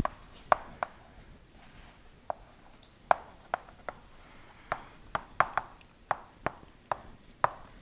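Chalk writing on a chalkboard: a run of irregular sharp taps and clicks, a few each second, as the chalk strikes and strokes the board.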